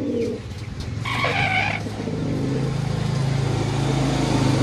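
A pigeon cooing briefly at the start, then a motor vehicle engine running close by: a low, steady drone that grows louder from about a second in.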